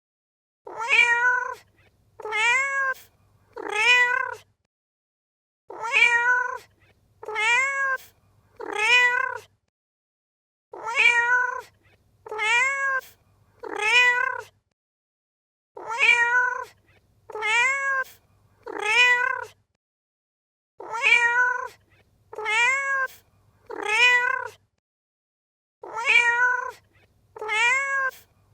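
Domestic cat meowing in sets of three short meows, each meow rising and then falling in pitch. The sets come about every five seconds with silence between them, repeating identically as a loop.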